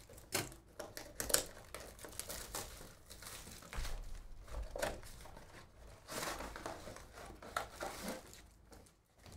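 A sealed box of trading cards being unwrapped and opened by hand: irregular crinkling of wrapping and tearing of the box's cardboard flap, with the loudest bursts around the middle and just after.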